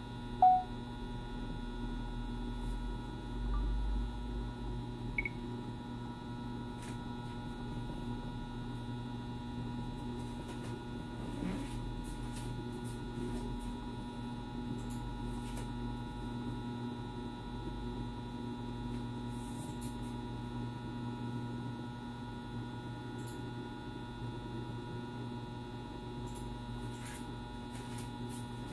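Steady electrical hum, several steady tones layered together with a low rumble beneath. One short, sharp blip comes about half a second in, and a few faint clicks are scattered through it.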